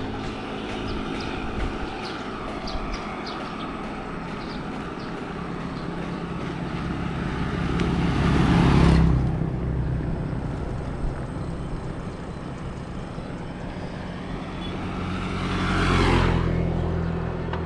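Bicycle tyres rolling with a steady noise. Two motor vehicles pass on the road: the first swells to the loudest point about nine seconds in and drops away suddenly, and the second peaks near the end.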